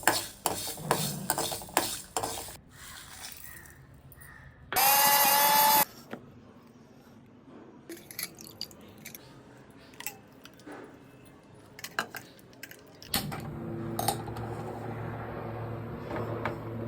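Cooking sounds: metal utensils clinking and tapping in quick succession, a loud burst lasting about a second roughly five seconds in, scattered taps after it, then a steady low hum from about thirteen seconds in.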